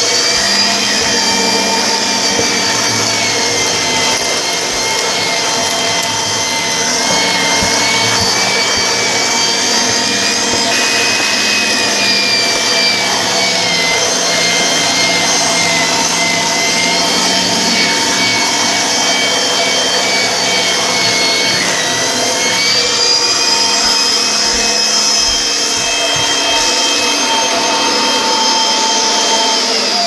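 Vacuum cleaner motor running steadily with a high whine whose pitch drifts up and down as the suction load changes. Right at the end the whine starts to fall as the motor winds down.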